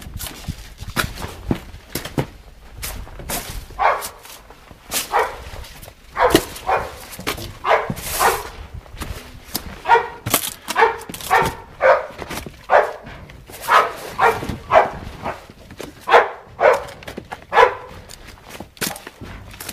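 Flat-coated retriever search-and-rescue dog barking repeatedly at a spot in the rubble, short sharp barks about one or two a second, the bark alert a search dog gives when it has found a hidden person. Scattered clicks and scuffs of footsteps on broken debris come before the barking starts.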